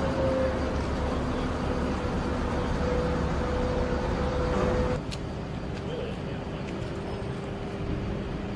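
Stryker armoured vehicle's diesel engine running steadily with a high whine over it. About five seconds in the sound cuts abruptly to a slightly quieter engine noise with a lower whine.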